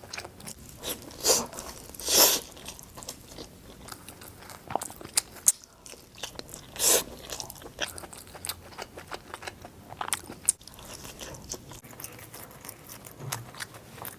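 Close-up eating sounds: a person biting and chewing a slice of sausage pizza, with a few louder crunching bites, the loudest about two seconds in and another near seven seconds.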